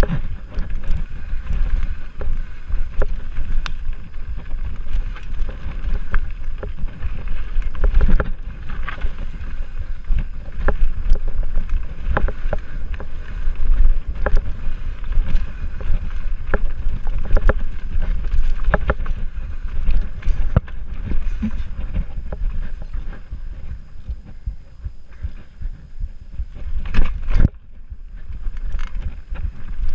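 Mountain bike rolling fast down a rough dirt singletrack: wind buffeting the camera microphone and a steady rumble from the tyres and frame, broken by frequent sharp knocks and rattles as the bike goes over roots and rocks, with two louder knocks near the end.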